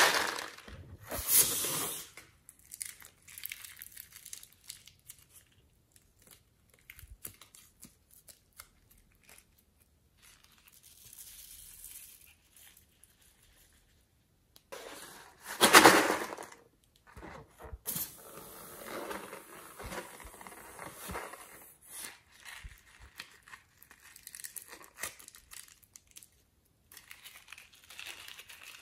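Hands working in a tray of slime topped with crumbled clay and glitter: crackling, crinkling and rustling noises, with louder handling noise at the start and again about halfway through.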